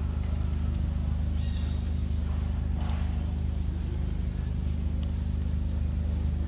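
A motor running steadily: a constant low drone with an even hum that does not change.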